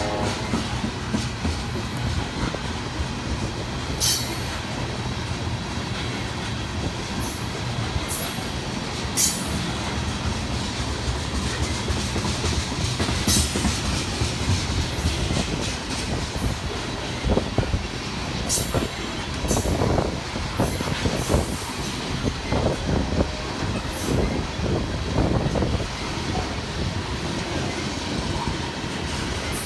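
A loaded ethanol freight train rolling past: a steady rumble of wheels on rail, with sharp clicks and brief high squeals from the wheels. The clatter grows denser about two-thirds of the way through.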